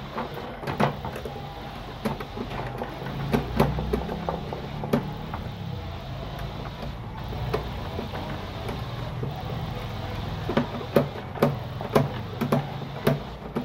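Screwdriver working the terminal screws of a three-phase electricity meter, securing the final phase cable: scattered clicks and small knocks of metal and plastic, more frequent near the end, over a low steady hum.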